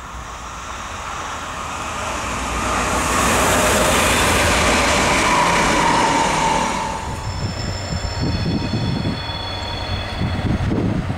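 A train passing close at speed, the noise of its wheels on the rails building to a peak and then cutting off. A diesel locomotive then hauls freight wagons slowly around a curve, its engine rumbling under steady high-pitched wheel squeal.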